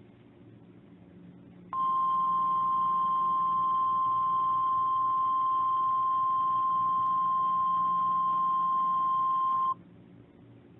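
Emergency Alert System attention signal: a single steady tone of about 1050 Hz, the NOAA Weather Radio style alert tone. It starts about two seconds in, holds for about eight seconds and cuts off sharply, over a faint low hum.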